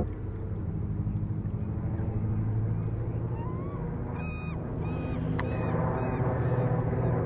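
Boeing Stearman biplane's radial engine heard from the ground as a steady low hum while it flies high overhead. A few short high chirps and one sharp click come in the middle.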